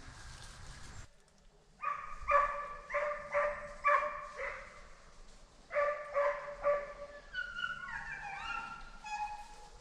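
Young hunting hounds opening on a coyote track. Two runs of short barks come from about 2 s in and again past the middle, then long drawn-out bays with pitch slides near the end.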